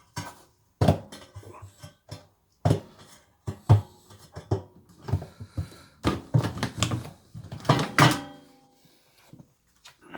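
Old rubber door seal being worked and pulled off a washing machine by hand: irregular knocks, clatters and scraping handling noise.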